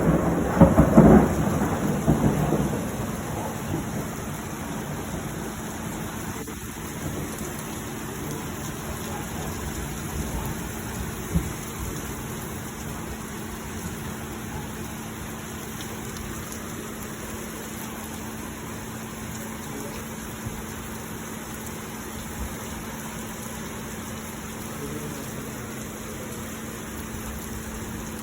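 A thunderclap rumbling loudly at the start and dying away over the first few seconds, then steady rain falling, with a faint steady low hum underneath and one sharp click about eleven seconds in.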